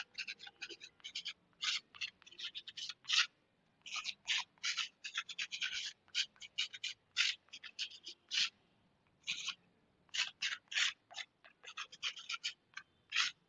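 Chalk writing on a blackboard: a rapid run of short scratching strokes, letter by letter, with brief pauses between words.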